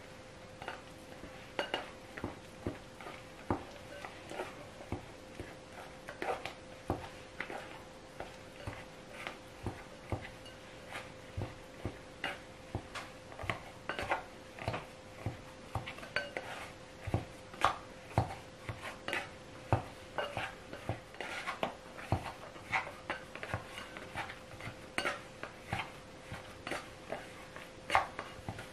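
Plastic dough scraper scraping and knocking against a glass mixing bowl while flour and liquid are mixed into bread dough, about two knocks a second.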